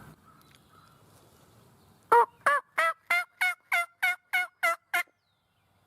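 A series of about ten turkey yelps, evenly spaced at roughly three a second, each note dropping in pitch, the first the loudest; the run stops abruptly.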